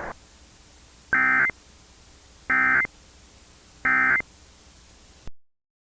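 Emergency Alert System end-of-message data tones: three short, identical bursts of digital data tones about a second and a half apart, signalling the end of the alert. The audio then cuts off suddenly.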